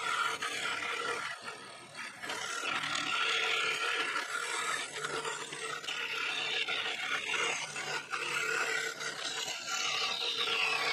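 Scroll saw running and cutting a thin wooden board: a steady motor hum under the rasp of the reciprocating blade going through the wood.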